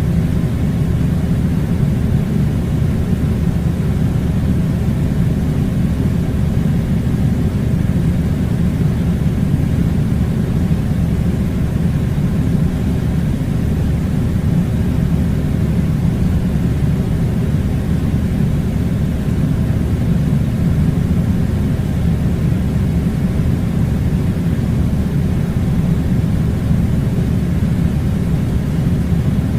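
Air conditioner running: a steady, unbroken low rumbling rush of blowing air.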